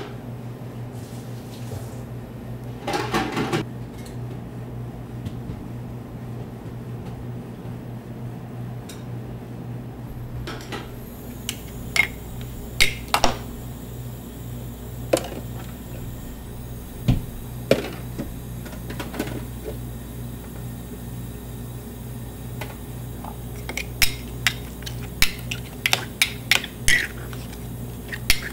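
Metal spatulas clinking and scraping on a chilled plate as ice cream is mixed. The taps are scattered at first and come thick and fast near the end, over a steady low hum.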